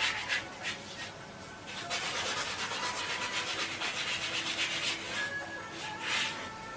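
Paintbrush rubbing oil paint onto a canvas in a run of short, quick strokes, several a second, from about two seconds in.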